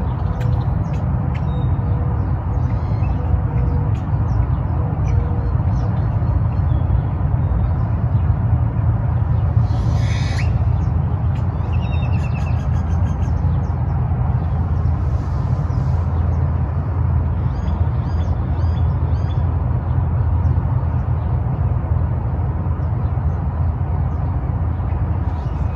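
Birds calling and chirping at intervals, with a short burst of calls about ten seconds in, over a loud, steady low rumble.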